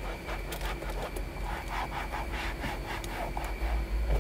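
Cloth rubbing over a car's interior door panel in quick, uneven wiping strokes, several a second.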